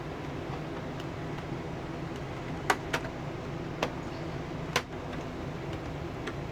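RV rooftop air conditioner running with a steady hum and blowing air. Over it come sharp plastic clicks, four louder ones close together in the middle and a few fainter ticks, as a ceiling vent cover is handled and taken off.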